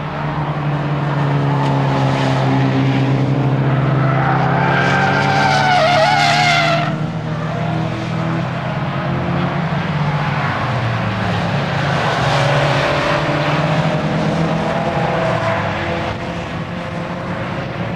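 Nissan S15 Silvia's engine driven hard, its pitch rising and falling with throttle and gear changes, with the tyres squealing loudly through a corner from about four to seven seconds in, then cutting off suddenly; a fainter tyre squeal follows later.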